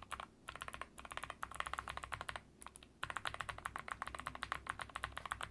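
Rapid typing on Gateron Melodic Clicky switches in an AVAX GM03 Pro mechanical keyboard, each keystroke a very clean click, with a short pause a little past the middle.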